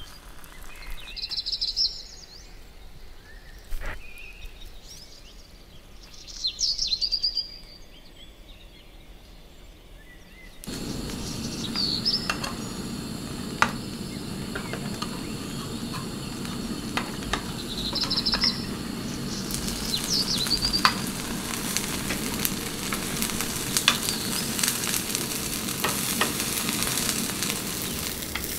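Grated potato toast with cheese frying in a rectangular pan: a steady sizzle comes in suddenly about a third of the way in, with a few light clicks on top. Short bird chirps sound now and then throughout.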